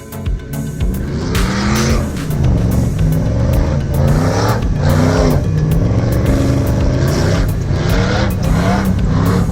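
Car engine revving up and down over and over, driving hard on sand dunes, with short hissing surges each time the revs rise.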